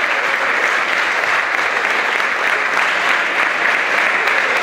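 A group of people applauding: steady clapping.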